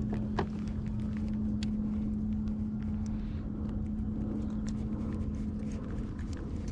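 A motor running steadily: a low rumble with a constant hum that fades out about six seconds in, with scattered light clicks over it.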